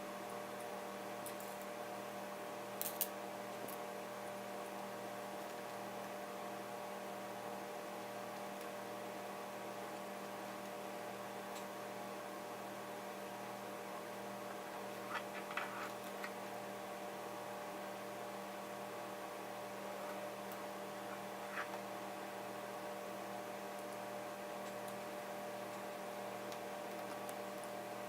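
Steady electrical mains hum, with a few faint, brief clicks about 3 seconds in, around the middle and again later on.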